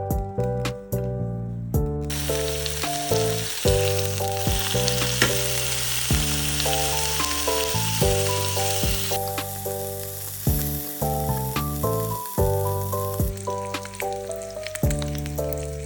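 Background music of steady melodic notes over a sizzling hiss of food frying in a pan, which starts about two seconds in and stops near the end.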